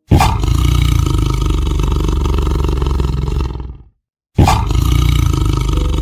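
Tiger roaring: a loud, rough, sustained roar that starts abruptly, runs for nearly four seconds and cuts off, then starts again just as suddenly about half a second later.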